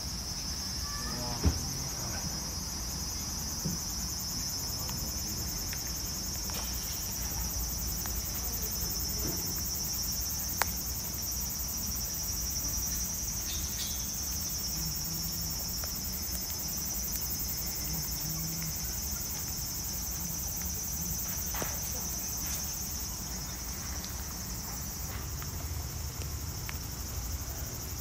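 Steady high-pitched buzzing of insects, with two sharp knocks, one about a second and a half in and another about ten seconds in.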